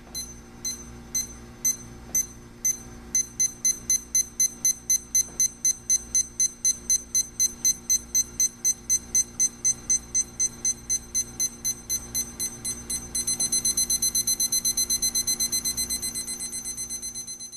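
Equity 40001 LCD digital alarm clock sounding its alarm: short high-pitched electronic beeps that start slow, quicken to about four a second after a few seconds, then switch to a faster, louder beeping about thirteen seconds in.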